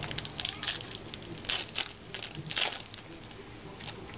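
Trading card pack wrappers crinkling and cards being handled, in a run of short crackles, the loudest about one and a half and two and a half seconds in.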